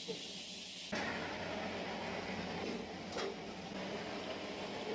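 Hot oil sizzling in an iron kadai as vegetables deep-fry, turning suddenly louder and fuller about a second in. A couple of short scrapes or clinks come around three seconds in.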